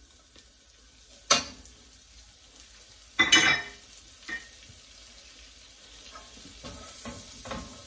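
Diced carrots sizzling faintly in melted butter in a stainless steel skillet, with two sharp knocks of kitchenware against the pan, about one and three seconds in, the second the loudest. Near the end a silicone spoon stirs the carrots and the sizzle grows a little.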